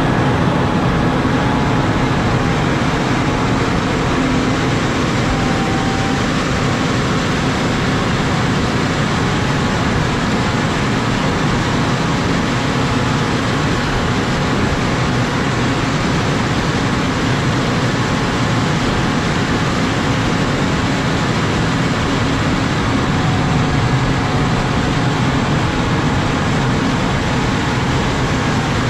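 John Deere 6155R tractor's six-cylinder diesel running steadily under load as it pushes a front snowplow through snow, a continuous, even mechanical noise.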